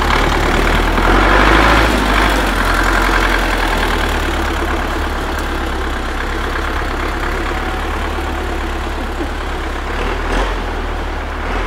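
Belarus T-40 tractor's air-cooled diesel engine running steadily, growing slowly fainter as the tractor moves off through the snow.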